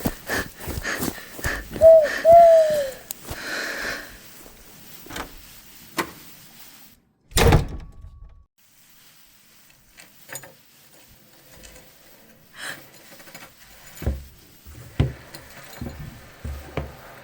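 Homemade foley sound effects: a string of knocks, taps and thumps, with two short rising-and-falling calls about two seconds in and one loud door-like thump about seven seconds in that cuts to silence for a moment before more scattered knocks.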